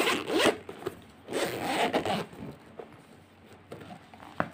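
Zipper of a hard-shell pencil case being pulled open in two strokes, a short one and then a longer one, followed by a single click near the end.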